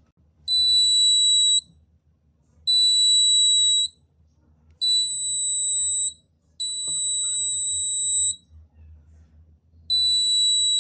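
Piezo buzzer of a proximity sensor circuit sounding a steady high-pitched beep five times, each lasting one to two seconds with uneven gaps between them, as the sensor is triggered.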